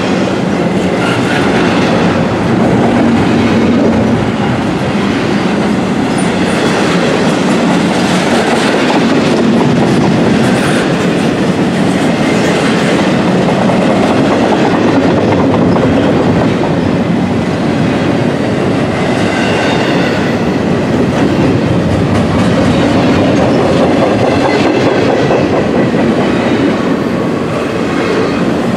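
Double-stack intermodal freight cars rolling past on steel rails: a loud, steady rolling noise with repeated clicking of wheels over the track.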